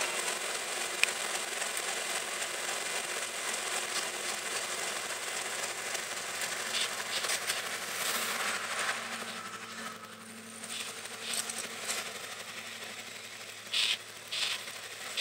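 Class 55 Deltic diesel locomotive D9009 'Alycidon' going by close at hand, its twin Napier Deltic engines running under power. This is followed by the train's coaches rolling past. A few short, sharp clatters come near the end.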